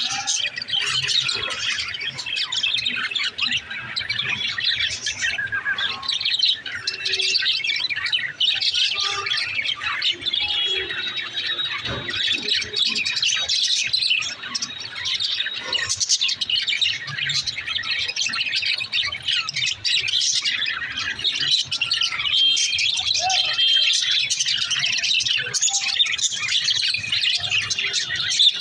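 Several pet budgerigars chirping and warbling together, a dense, continuous chatter of overlapping high chirps.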